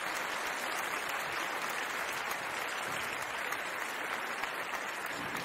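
Applause: many hands clapping in a steady, even clatter.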